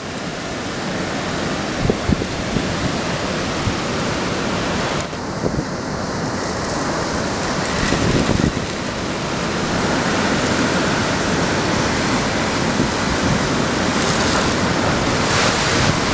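Hurricane-force wind and heavy driving rain blowing steadily, with gusts buffeting the microphone. It grows louder in the second half.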